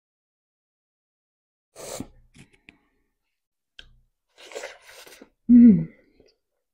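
Close-up eating sounds of a woman eating rice and deep-fried fish by hand: a sharp breath through the nose about two seconds in, soft chewing and mouth noises, then a short, loud hum falling in pitch near the end.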